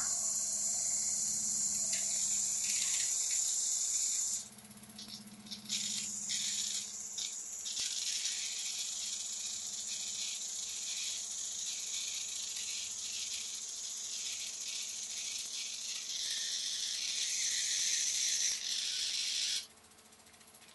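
Bing overtype model steam engine running under steam: a steady high hiss that dips for a moment about four seconds in and cuts off suddenly near the end.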